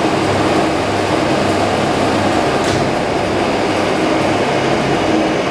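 Main electric drive motor of a 1M63 (DIP300) heavy lathe running steadily with a constant hum, the friction clutch in neutral so the spindle is not driven.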